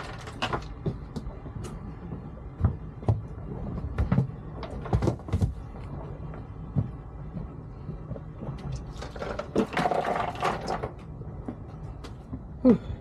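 Scattered knocks and clatter of fishing gear being handled and stowed aboard a boat, over a low steady rumble, with a longer rustling stretch about nine seconds in and a sharp knock near the end.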